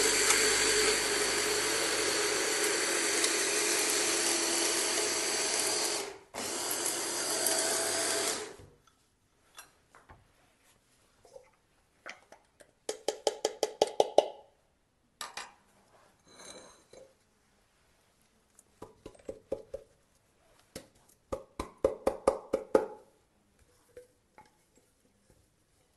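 Electric hand-blender chopper running as it grinds fried almonds, walnuts and melon seeds to a powder: a steady motor whine that cuts out for a moment about six seconds in and stops about nine seconds in. Afterwards, quieter bursts of rapid tapping and rattling as the ground nuts are knocked out of the plastic chopper bowl.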